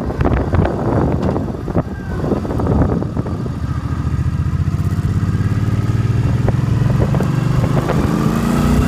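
Suzuki Boulevard C50's 805cc V-twin engine heard from the saddle while riding. Wind rush covers it for the first few seconds; then the engine runs steadily at low revs, and the revs rise near the end as the bike accelerates.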